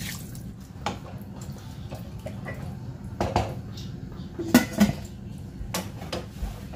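Stainless steel pot lid clinking and knocking against the rim of a stew pot as it is set on and adjusted, after a short trickle of poured water at the start. The loudest knocks come about halfway through.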